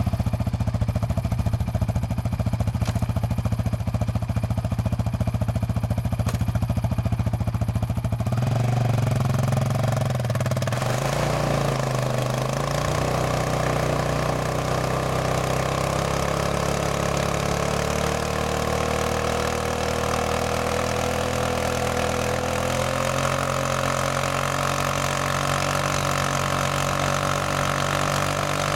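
Yamaha Raptor sport quad's single-cylinder engine idling with a fast, even firing pulse, then from about eight seconds in revved up and held high, its pitch climbing slowly and steadily while the rear wheels spin in the sand in a smoky burnout.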